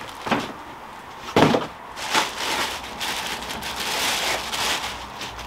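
Clear plastic wrapping crinkling and rustling as it is pulled off a blender's glass jug: a few sharp crinkles in the first two seconds, then a longer, steadier rustle.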